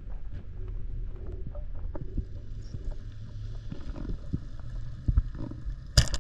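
Low underwater rumble and water noise with faint scattered clicks, then near the end one sharp, loud crack as a band-powered speargun is fired.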